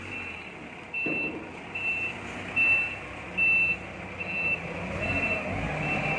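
A brand-new Mitsubishi 3-ton forklift reversing, its backup alarm beeping steadily about once every 0.8 s over the running engine, which picks up about a second in and again toward the end as the truck moves.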